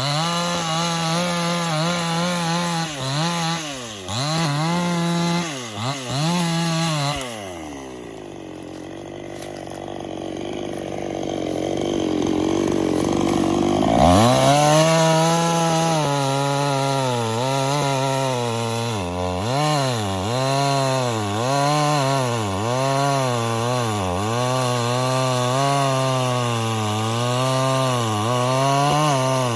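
Chainsaw running at high revs, its pitch dipping again and again as the chain bites into the wood under load. About seven seconds in it drops back to a low, rough idle, then revs up sharply around fourteen seconds and keeps cutting with rhythmic dips.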